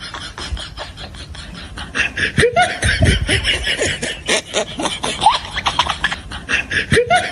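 Laughter: short snickering bursts, getting louder about two seconds in.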